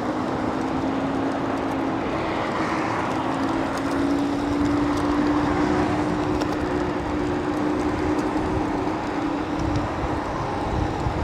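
Wolf King GT electric scooter riding at speed: a steady motor whine over wind and road noise. The whine lifts slightly in pitch a few seconds in and fades out near the end.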